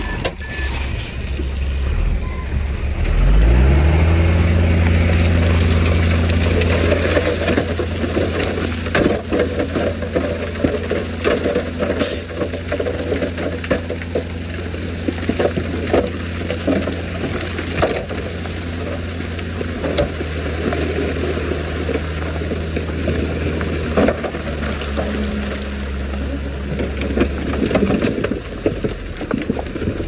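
Heavy diesel engines of a bulldozer and dump trucks working. The engine revs up about three seconds in and runs under load, eases off near the end, and loose rock crunches and clatters throughout.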